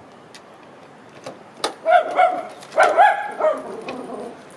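A trunk lock clicks once as it is released, about one and a half seconds in. Then a dog barks a few short times.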